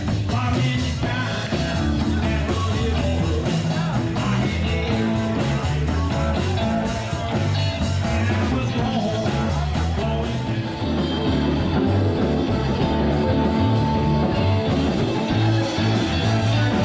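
Rock song with a singer, guitars and a steady beat.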